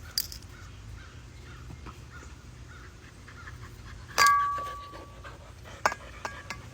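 A dog panting softly in a steady rhythm. About four seconds in comes a sharp metallic clink that rings for about a second, followed by a few lighter clicks near the end.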